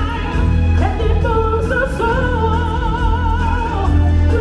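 Live stage-show song: a high singing voice holding long notes with wide vibrato through the theatre's sound system, over amplified backing music with a steady low bass.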